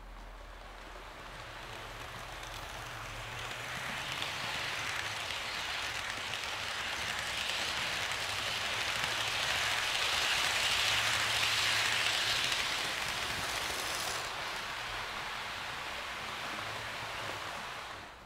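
HO-scale model electric train running along the track, a steady rushing rattle of wheels on rails with a faint low motor hum. It grows louder as the train comes close, eases off, then stops suddenly near the end as the locomotive halts.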